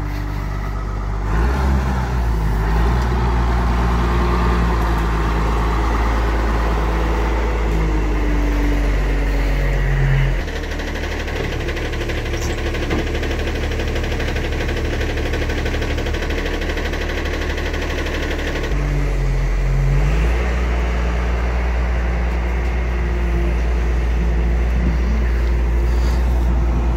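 Diesel engine of a wheel loader running under load as it lifts and carries a pickup bed on its forks. The engine speed rises about a second in, drops back about ten seconds in, and rises again a few seconds later.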